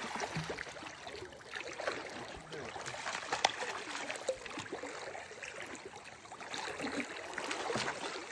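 Water trickling and lapping around a kayak, with scattered small clicks and one sharp knock about three and a half seconds in.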